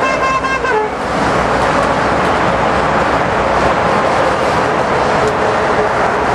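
A horn sounds a steady tone and stops under a second in, giving way to a steady, loud wash of noise from a street march: the crowd of marchers moving along the road.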